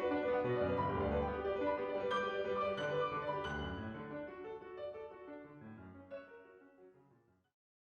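Piano music, fading steadily and ending in silence a little after seven seconds in.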